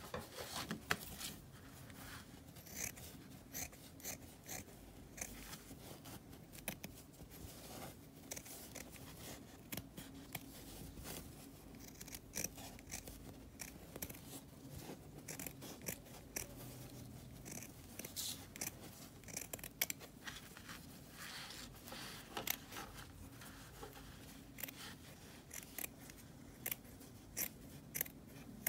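Scissors cutting through a sheet of felt: a run of short, irregular snips, one after another, as a shape is cut out.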